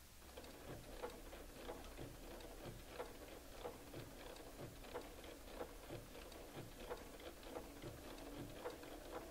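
Bernina 153 sewing machine stitching a blanket stitch slowly, a faint even ticking of about three stitches a second.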